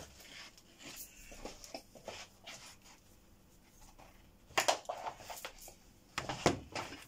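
Handling sounds of a mains power lead being fitted to a desktop PC: scattered light clicks, rustles and knocks, with the loudest knocks about two-thirds of the way through and again near the end.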